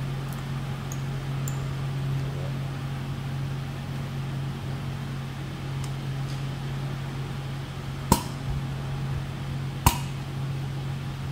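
Two sharp metallic clicks with a short ring, about eight and ten seconds in, from steel valve-spring retainers and collets being worked into place with a valve-spring compressor. A steady low hum runs underneath.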